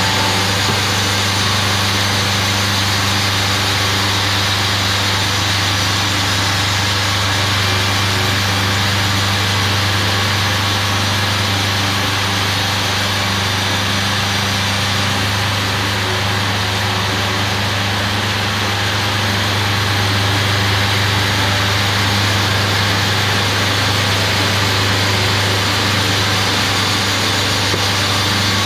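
Wood-Mizer LT40 portable band sawmill running steadily: a constant low engine hum under an even hiss.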